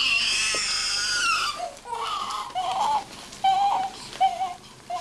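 Newborn baby crying: a long, high wail for the first second and a half, then a string of shorter cries.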